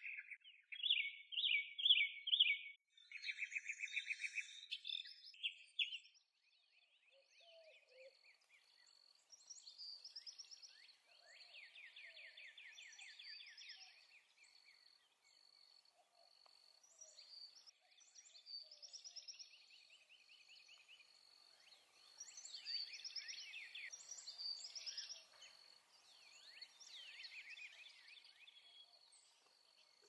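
Several songbirds singing and calling: quick chirps, trills and short whistled phrases. A faint, steady, rapidly pulsing high note runs behind them.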